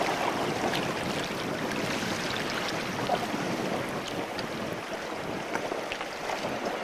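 Shallow river water rushing and splashing around an inflatable raft as it is hauled by hand through a riffle too shallow to float.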